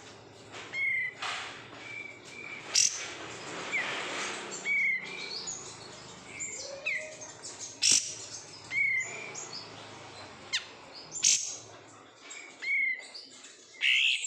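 A kapas tembak songbird singing: short whistled notes, some sliding up or down, repeated every second or two, with a few sharp, loud chattering notes in between.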